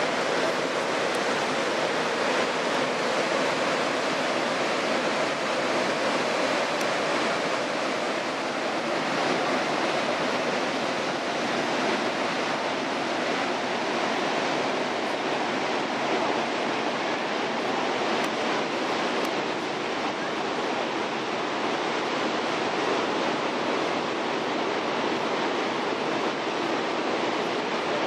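Steady rushing roar of the Montmorency Falls waterfall, running high with spring meltwater.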